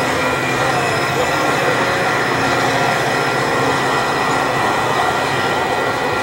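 Passenger train pulling away from a station, its wheels rumbling on the rails with a steady high-pitched squeal held over the rumble.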